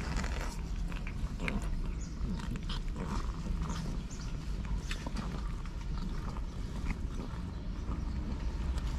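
Mother cat licking her kittens clean while they squirm against a cardboard box: a run of short, irregular licking and scuffing sounds.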